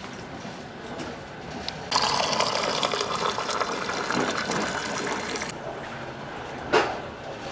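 Hot water gushing from a train carriage's stainless-steel drinking-water dispenser tap into a glass for about three and a half seconds, starting and stopping abruptly. A single sharp knock follows near the end.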